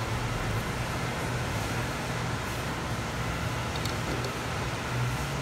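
Steady low background hum with an even hiss, and a few faint light clicks about four seconds in as the grinder's metal parts are handled.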